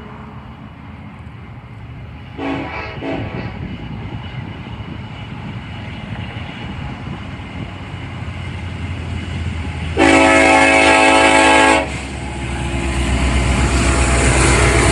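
Horn of a Union Pacific EMD SD70AH diesel locomotive leading a loaded rock train: a short, fainter blast about two and a half seconds in, then a loud, long blast from about ten to twelve seconds. After it the rumble of the approaching train's engines and wheels grows steadily louder.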